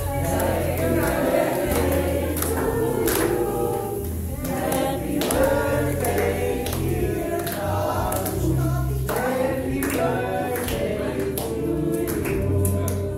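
Several voices singing together over music with a steady bass line, as in a birthday song.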